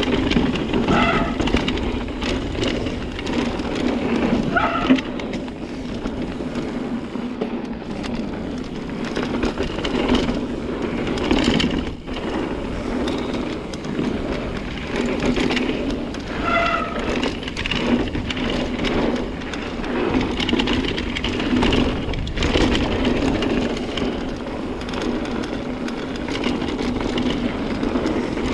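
Ibis Ripley AF mountain bike riding fast down a dirt trail: tyres rolling over packed dirt and leaf litter, with frequent rattles and knocks from the bike over bumps, and wind on the microphone.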